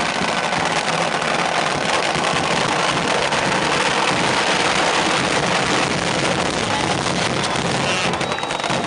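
Racing motorcycle engine held at high revs while the rear tyre spins in a burnout, a loud, steady noise throughout.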